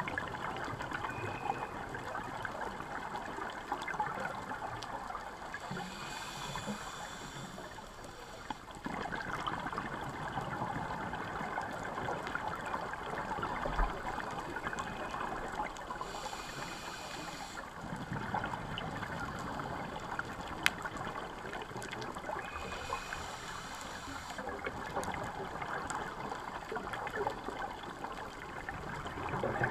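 Scuba diver's regulator breathing heard underwater: three hissing breaths in, each followed by a longer bubbling rush of exhaled air, over a steady underwater wash.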